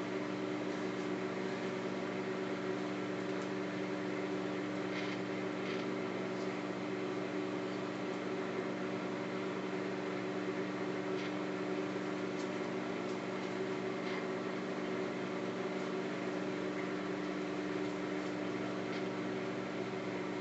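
Microwave oven running with a steady hum as it heats marshmallows, with a few faint ticks over it.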